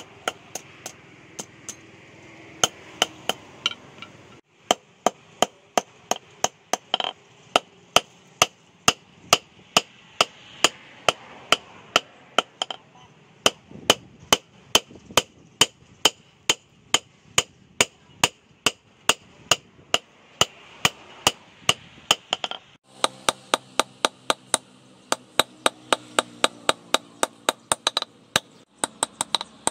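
Hand hammer forging a red-hot steel knife blade, cut from a bearing race, on an anvil: steady sharp metallic blows, about two to three a second.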